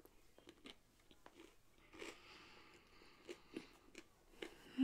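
Faint close-up chewing of a mouthful of sandwich with the mouth closed: a scatter of small, soft wet mouth clicks.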